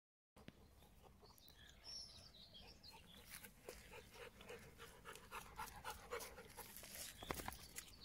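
Rottweiler panting in quick, soft puffs as it trots close, with faint bird chirps a couple of seconds in. A brief knock near the end.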